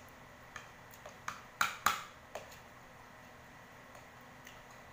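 Spoon and fork clicking and clinking against a plate as fried chicken is pulled apart: about six sharp clicks in the first two and a half seconds, the loudest near the middle, then two faint ones later.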